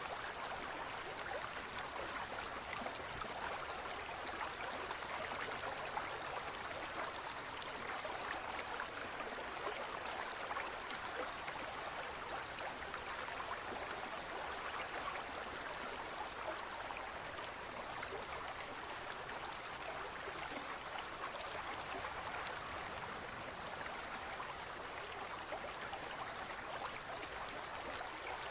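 Water moving steadily in a large tropical fish tank: a constant, even trickling rush with no change throughout.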